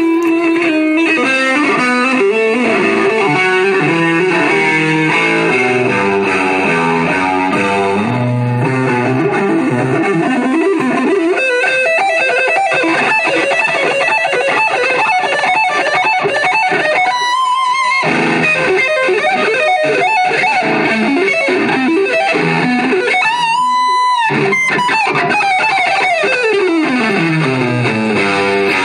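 Electric guitar solo played live: quick runs of notes, ending in a long descending run near the end.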